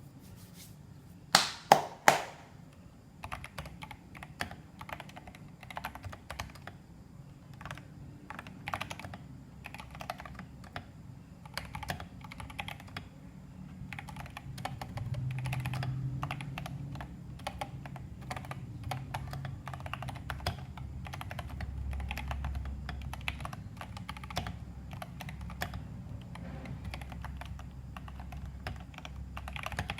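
Typing on an FL-MK870 mechanical keyboard with pre-lubed Feker Crystal switches on 50 g springs, tape-modded and silicone-dampened, under Cherry-profile keycaps. Three loud clacks come about two seconds in, followed by a steady run of key presses.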